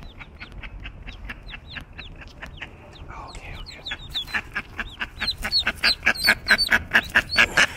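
Mallard ducklings peeping: many short, high, overlapping peeps repeated several times a second, getting louder about four seconds in. These are the insistent calls of ducklings cut off from the hen by a curb they cannot climb.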